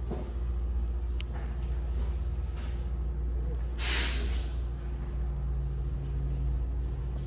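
Steady low mechanical hum and rumble, with a few light clicks and a short hiss about four seconds in.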